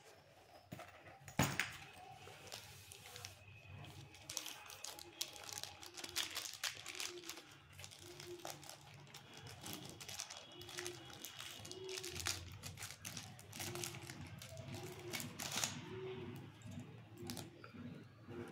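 Clear plastic packaging bag crinkling and rustling as it is handled and opened and cables are pulled out, with a sharp knock about a second and a half in.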